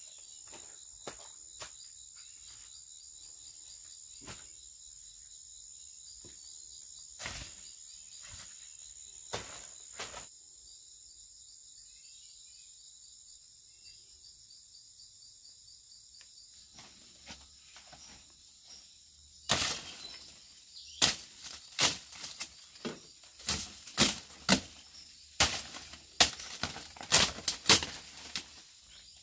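Steady high-pitched drone of forest insects, with a few faint ticks of footsteps. About two-thirds of the way through, a run of loud, sharp cracks and crackles begins, dry leaves and stems snapping and rustling as the woman moves and handles the palm.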